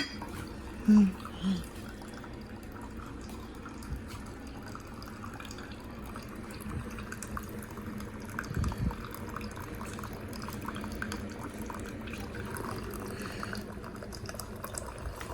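Keurig single-serve coffee maker brewing an 8-ounce cup: coffee running and dripping steadily into the container below, with a sharp click at the start and two short low tones about a second in.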